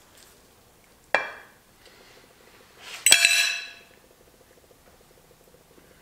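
A fork clinking against a dinner plate twice, a short clink about a second in and a louder one about three seconds in that rings for most of a second.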